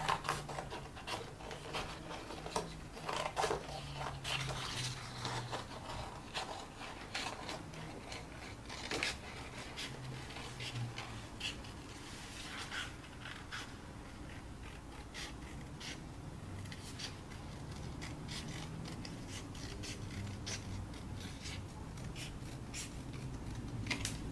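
Scissors cutting thin white card: an irregular run of short snips and scrapes as the blades close through the card, over a faint low hum.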